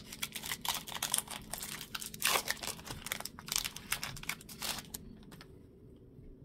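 Foil wrapper of a Pokémon TCG booster pack being torn open and crinkled by hand: a run of crackles and rustles that dies away about five seconds in.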